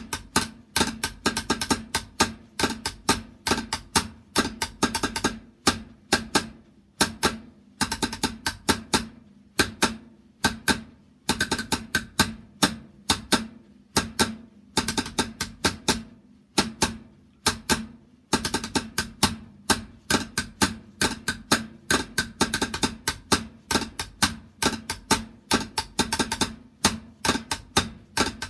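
Military-style drumming: quick runs of repeated drum strokes, several a second, broken by short pauses.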